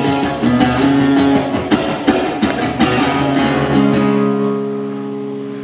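Live song music in an instrumental break: acoustic guitar strumming chords, then about four seconds in a chord is left ringing and fades.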